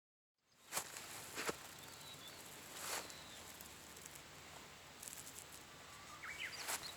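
Outdoor ambience fading in: a steady hiss with a few sharp clicks and snaps, and faint bird chirps near the end.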